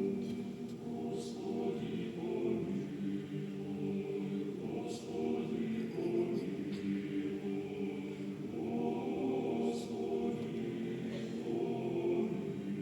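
Choir singing slow, sustained chords, the sound weighted toward low voices, with upper parts swelling in and out every four or five seconds.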